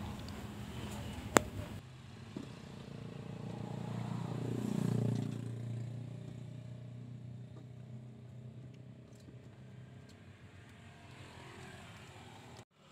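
A vehicle passing by: its engine swells to a peak about five seconds in, then drops in pitch and fades away. A single sharp click comes about a second in.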